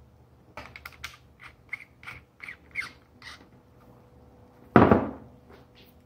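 A miniature circuit breaker and screwdriver being handled on a bench: a run of about ten small clicks and scrapes, then one loud thump near the end.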